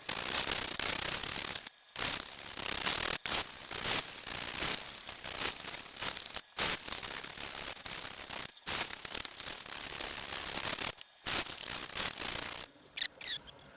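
Abrasive paper on a fret-levelling bar rubbed back and forth along the frets, a steady rasping broken by brief pauses every couple of seconds and stopping near the end. The sanding is taking down the high frets to level them.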